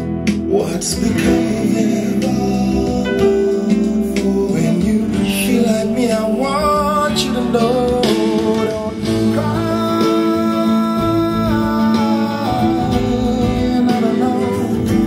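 A song with a singing voice and guitar, played back as a listening test through an Altec A7-type horn loudspeaker with a 15-inch LEEA woofer and a JBL 2441 compression driver, driven by a Philips germanium transistor amplifier.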